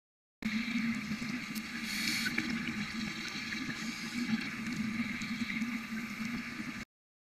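Steady watery noise with a low hum under it. It starts abruptly just after the start and cuts off abruptly near the end.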